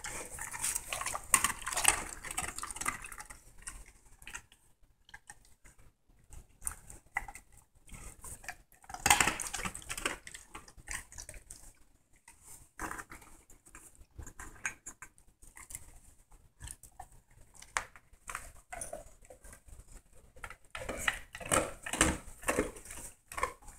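German shepherd sniffing and licking at close range: an irregular run of short snuffles, wet smacks and small knocks, louder around nine seconds in and again near the end.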